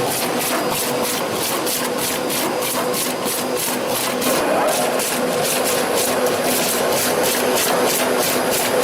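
Food-processing machinery running: a steady hum under a rapid, regular clatter of about four clicks a second.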